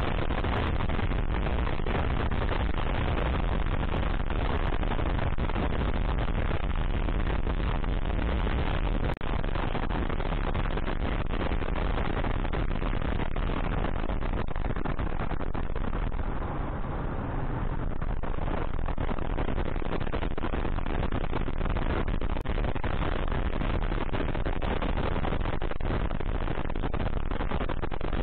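Motorcycle riding noise, the Kawasaki KLR dual-sport's engine under a steady rush and buffeting of wind on the microphone.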